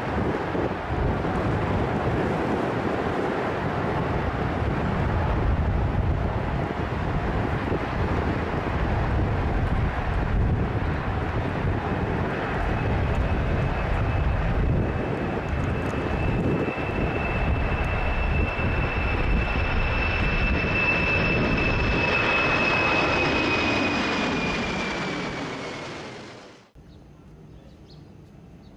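Boeing 747's four jet engines at takeoff power: a loud, steady roar with a high engine whine that grows clear and slides slightly down in pitch as the aircraft goes by. The sound fades and then cuts off shortly before the end.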